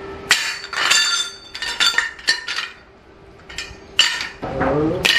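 Square steel tubes clinking and clanking, with a metallic ring, as they are set down and shifted against each other on a concrete floor: about half a dozen separate knocks, with a quieter pause in the middle.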